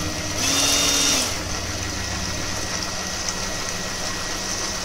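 Philips HR1595 hand mixer on its rotating-bowl stand running steadily, its beaters churning cream that is separating into butter. Near the start the motor briefly runs louder and higher for about a second, then settles back to its steady hum.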